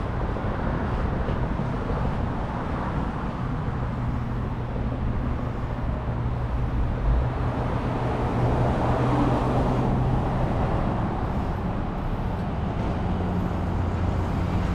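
Street traffic: car engines running steadily with a low hum, swelling a little about two thirds of the way through.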